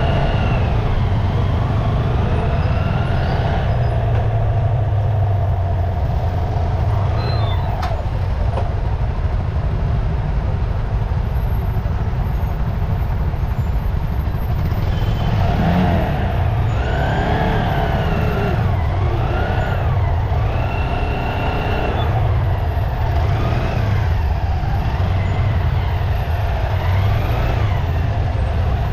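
Dense motorcycle and scooter traffic: many small engines running together in a steady low rumble, with higher tones gliding up and down in pitch from about halfway through.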